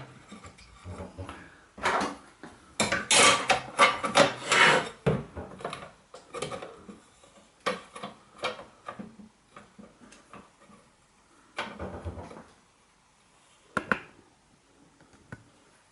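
Inner glass panel of a cooker door being fitted back into the metal door frame: glass and metal clattering and scraping, loudest about three to five seconds in, then scattered knocks and taps.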